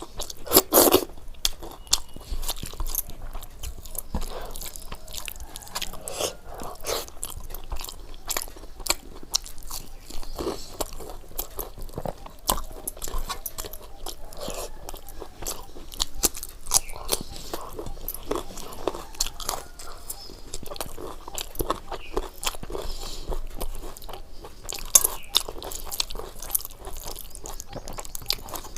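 Close-miked eating: a person biting and chewing food, with many short crisp crunches throughout and the sharpest ones about a second in and near the end.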